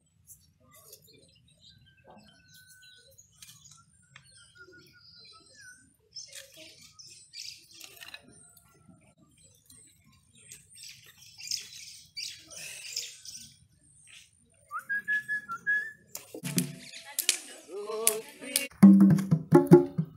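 Quiet outdoor ambience with faint bird chirps, a rising whistled call and small crackles. Near the end come loud, repeated hand strikes on Ohangla drums whose skin heads have just been heated over a fire to tighten them, sounding them out for tuning.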